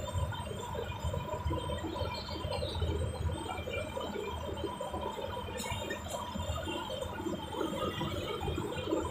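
The inside of a moving bus: its diesel engine and the road give a steady low rumble, with the cabin rattling. There is a brief click about five and a half seconds in.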